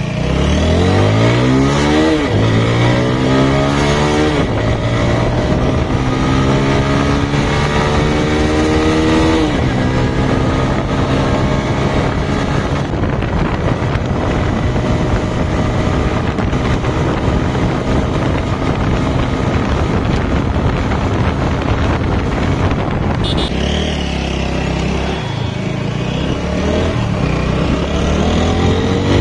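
Four-valve single-cylinder motorcycle engine accelerating up through the gears, its pitch climbing and dropping back at each shift in the first ten seconds, then cruising steadily with wind rushing over the microphone. It eases off for a moment about three-quarters of the way in, then revs up again near the end.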